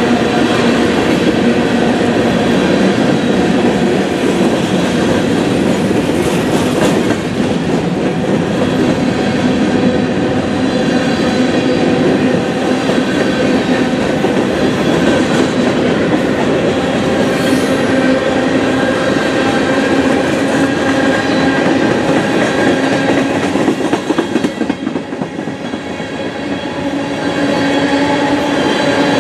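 Freight cars of a manifest train rolling past close by: a loud, continuous rumble of steel wheels on rail with clickety-clack over the rail joints and a steady whine running under it. The noise dips briefly about three-quarters of the way through, then picks up again.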